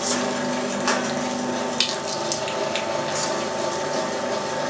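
Electric meat grinder attachment on a stand mixer running steadily, its motor humming as raw chicken breast is fed through and minced, with a few short clicks along the way.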